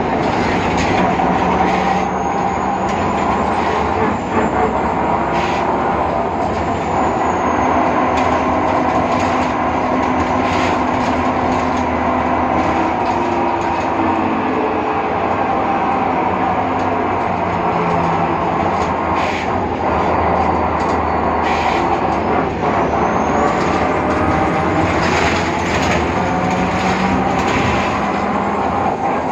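Cabin sound of a BredaMenariniBus Avancity Plus city bus under way: continuous drive noise with a strange whine from the differential, several whining tones that shift in pitch with road speed. A faint high whistle climbs and falls away in the later part.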